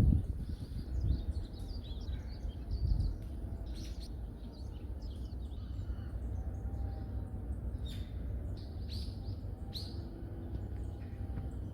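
Small forest birds chirping, with many short, high calls scattered through, over a low rumble that is loudest in the first few seconds.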